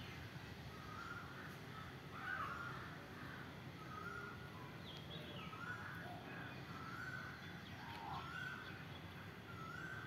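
Birds calling with short, repeated calls, roughly one a second, over a low, steady background rumble.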